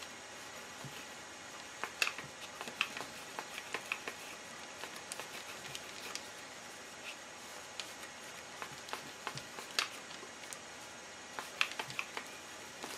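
Light, irregular clicks and taps from hands rolling a rope of soap dough back and forth on a work surface, in bunches about two seconds in, near ten seconds and near the end, over a steady faint hiss.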